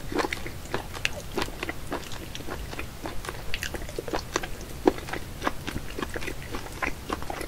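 Raw octopus tentacles handled with the fingers on a ceramic plate: irregular wet, sticky clicks and squelches, several a second, as the suckers cling and pull free.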